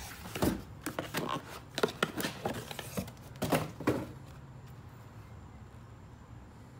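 Cardboard packaging rustling and scraping, with light knocks, as a lawnmower battery is pulled out of its box. The handling stops about four seconds in, leaving a faint low hum.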